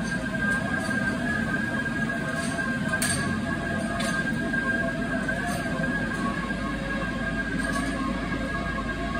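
Sgariboldi self-propelled feed mixer wagon running steadily, a mechanical drone with a constant high whine over a low rumble. A few faint metal clinks about three and four seconds in.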